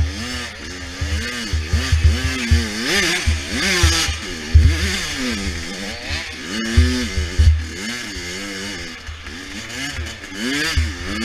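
A 100cc dirt bike engine revving hard and dropping off again and again, its pitch rising and falling every second or so as it is ridden.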